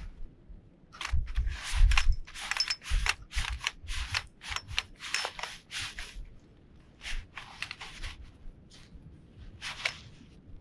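Cot fabric rustling and swishing in a quick run of short bursts as a pole is pushed through the cot bed's sleeve, with dull low bumps under them, thinning out after about six seconds.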